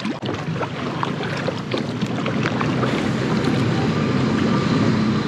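Kayak paddles dipping and dripping in lagoon water, small splashes over a steady rush of wind on the microphone.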